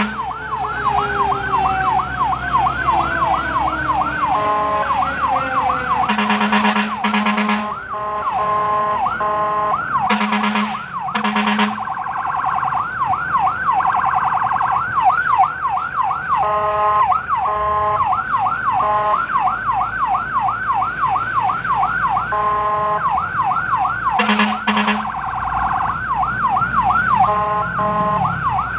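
Electronic siren of a responding fire truck running in a fast yelp that switches briefly to another tone pattern several times. Three pairs of short, deep horn blasts cut in, about six, ten and twenty-four seconds in.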